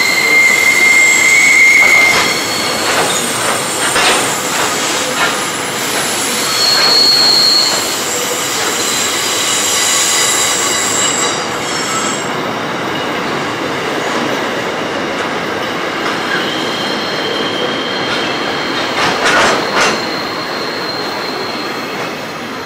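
Freight train's box wagons rolling past, wheels squealing in high, steady tones that start and stop, with wheel clatter over the rails a few seconds in and again near the end. The sound fades as the tail of the train goes by.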